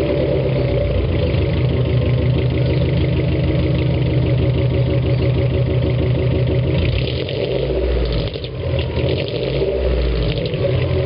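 Boxer engine idling steadily, with a couple of brief rises in revs past the middle.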